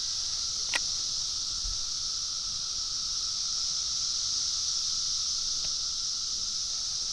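A steady, high-pitched chorus of insects, with a single short click a little under a second in.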